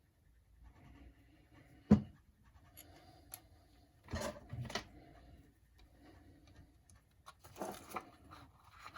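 Small RC car parts and hand tools being handled on a workbench: a sharp click about two seconds in, then short bouts of scraping and rustling.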